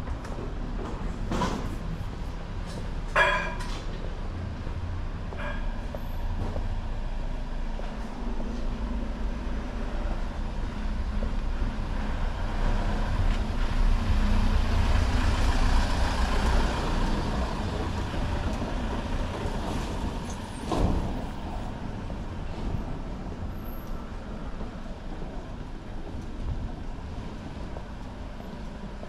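Street traffic: a steady low rumble of vehicles, with a heavy vehicle such as a truck or bus passing, loudest about midway. A couple of short sharp sounds stand out, one a few seconds in and one about two-thirds through.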